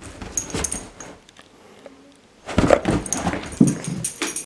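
Siberian husky agitated by a clothespin clipped to her tail: short whining vocal sounds and scrambling, with metallic jingling, loudest from a little past halfway in.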